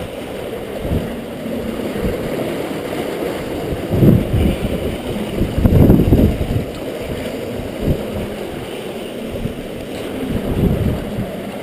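Steady rush of river water around a rotary screw fish trap, with splashing and sloshing as wet straw and sticks are scooped out of the trap's water-filled box, loudest about four and six seconds in.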